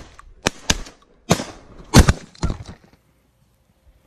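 Shotguns firing at flying geese in a rapid volley of about six shots over two and a half seconds, the loudest about two seconds in.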